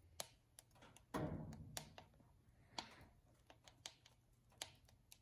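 Faint, irregular crackling and popping of a wood fire burning in a wood stove: about ten sharp pops spread unevenly, with a brief soft rustle about a second in.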